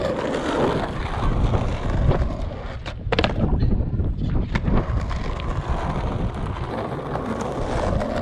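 Skateboard wheels rolling over a concrete bowl with a steady rumble. A couple of sharp clacks from the board come about three seconds in.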